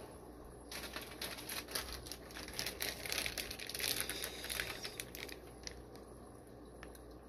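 Plastic fish shipping bags crinkling as they are handled, a dense crackling for several seconds that dies down near the end.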